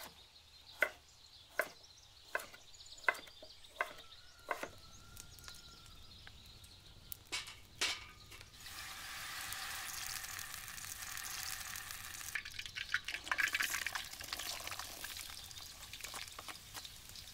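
A chef's knife chops a carrot on a wooden cutting board, about six sharp cuts a little under a second apart. Then fat sizzles in a hot cauldron over a wood fire, and the sizzle turns busier and crackly near the end as diced carrots are slid in from a plate.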